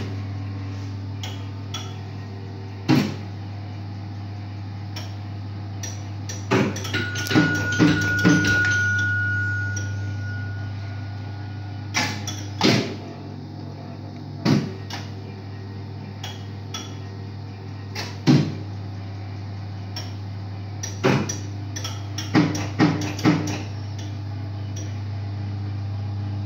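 1984 Merkur Saturn Uranus slot machine running with a steady low hum while its reels spin, with sharp mechanical clacks as reels stop and buttons are pressed, several in quick succession at times. About seven seconds in, the machine gives a single high electronic tone held for about four seconds.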